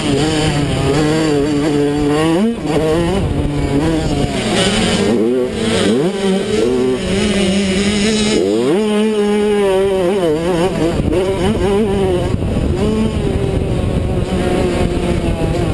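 Small youth motocross bike's engine revving hard under the rider's throttle, its pitch dropping and then climbing steeply again three times, heard from a helmet-mounted camera.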